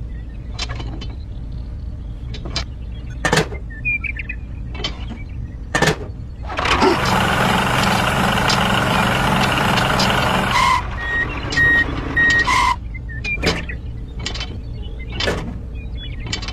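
Steady low vehicle engine drone for a toy tractor and trailer, with sharp clicks and knocks as the toy parts are handled. From about seven to eleven seconds in a louder rushing engine noise plays as the tractor pulls the trailer. Three short high beeps follow.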